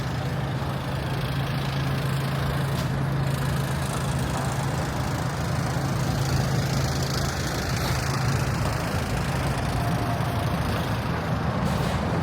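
A motor vehicle's engine idling close by, a steady low hum over general street traffic noise.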